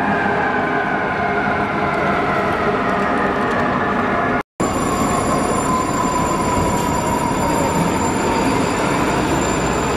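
Fire engine siren winding slowly down in pitch over the rumble of the truck's engine as it pulls out. The sound cuts out briefly about halfway through, then the siren slides down again at a lower pitch.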